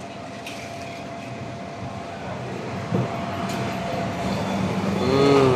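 Steady background din of a busy food stall, with a few short clinks and a brief voice near the end.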